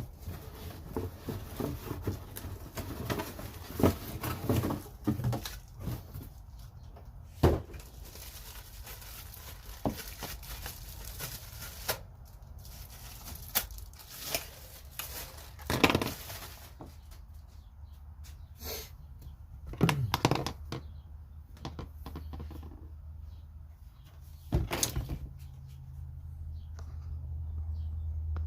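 Hard plastic vacuum parts and packaging being handled: scattered knocks and clicks, with some rustling in between. A low hum comes up near the end.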